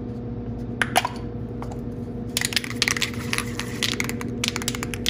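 Aerosol can of Krylon matte sealer being handled and shaken, its mixing ball rattling in rapid irregular clicks from about two and a half seconds in, after a couple of single clicks. A steady low hum runs underneath.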